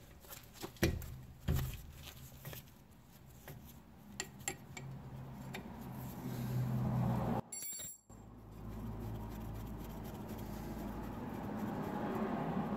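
Metal clicks of a 14 mm wrench on a rusty brake caliper's slide-pin bolt as it is worked loose: a few sharp clinks in the first few seconds. Under them runs a steady low hum.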